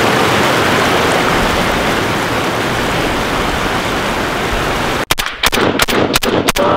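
Glacial river water rushing steadily over rocks, then about five seconds in a SCAR rifle firing a quick string of shots, several a second.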